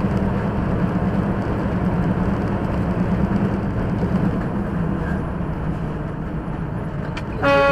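Semi-truck's diesel engine and tyre noise at highway speed, heard as a steady drone from inside the cab. Near the end a horn starts sounding, one loud steady blast of several tones.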